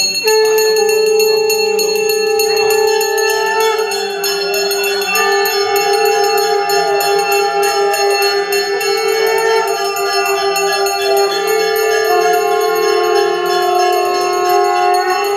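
Brass puja hand bell (ghanta) rung rapidly and without a break during the worship of Kali, a sustained metallic ringing with a quick clapper pulse.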